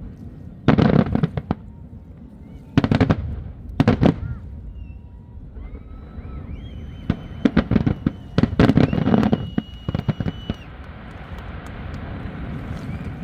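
Aerial fireworks going off in about five clusters of sharp bangs and crackling a second or two apart, the longest run of crackle lasting about two seconds.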